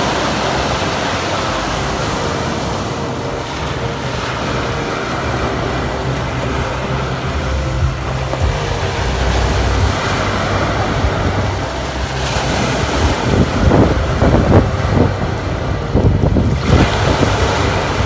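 Sea surf breaking and washing up a pebble beach, with wind rumbling on the microphone. From about two-thirds in, the wash gets louder, with a crackle of water running over the pebbles.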